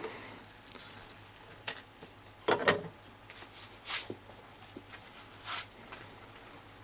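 A few short knocks and clinks as an RC tyre is turned over in a saucepan of boiling water, the loudest cluster about two and a half seconds in, over a faint steady hiss.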